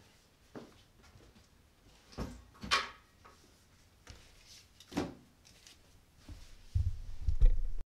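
Scattered knocks and footsteps of a person moving about a small room with a bag, the sharpest knocks about two to three seconds in and again about five seconds in. Near the end, low rumbling handling noise as hands grab the camera, and then the sound cuts off.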